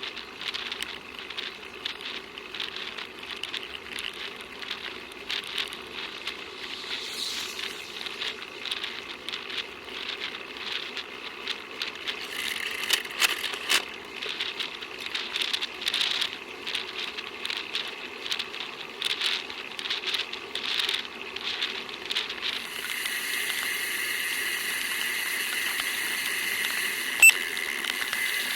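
A bicycle being ridden, with fast, irregular rattling and clicking from the bike over a steady road hum. About 23 seconds in this gives way to a steady high buzz, the rapid ticking of the rear freewheel ratchet as the rider coasts, with one sharp click near the end.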